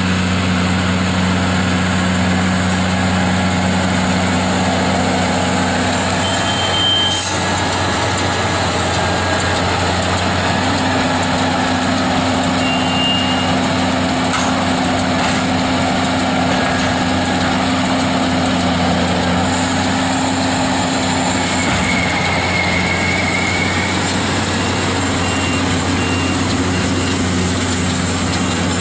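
JCB Fastrac 3200 tractor running steadily while it pulls a Lely Welger RP 435 Master round baler baling oat straw. A constant engine drone sits under the steady noise of the baler's pickup and machinery at work.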